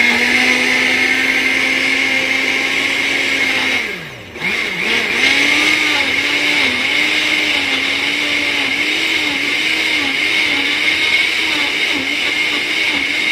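3D countertop blender's motor blending fruit, greens and water into a smoothie. It runs steadily, winds down about four seconds in, then starts again at a slightly higher pitch that wavers as the contents churn into a purée.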